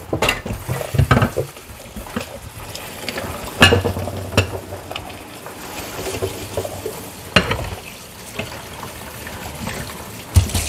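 Household handling sounds: objects being picked up and set down, giving a series of irregular knocks and clunks with rustling and scraping in between.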